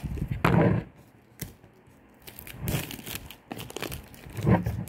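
Clear plastic shrink wrap on a smartphone box crinkling and tearing in irregular bursts as it is handled and peeled off.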